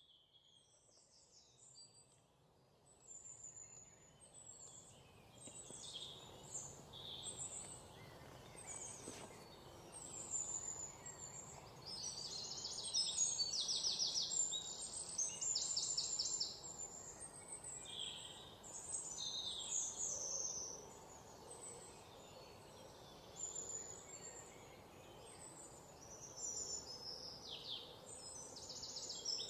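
Many small birds chirping and giving rapid high trills, overlapping one another over a faint steady hiss. The calls are sparse at first and grow louder and busier after a few seconds.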